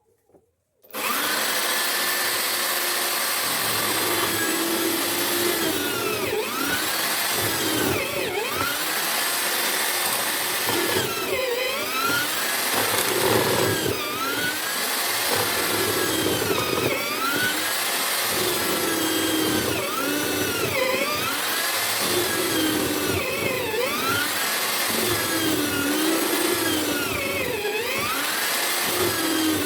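Homemade drill-based mortising machine starting up about a second in, then running while it bores mortises into wood. Its pitch sags and recovers about every two seconds as the cuts load the motor.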